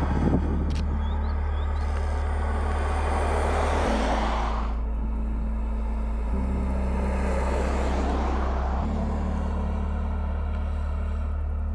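Land Rover Defender 110 plug-in hybrid SUV driving past on an asphalt road twice, its tyre and drivetrain noise swelling and fading; the first pass cuts off abruptly near the middle. Underneath runs a music bed of slowly changing bass notes.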